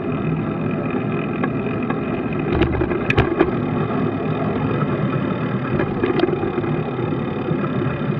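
Steady rumble of riding noise on a bicycle-mounted camera: wind on the microphone and tyres on the road. There are a few sharp clicks and knocks about three seconds in and again about six seconds in.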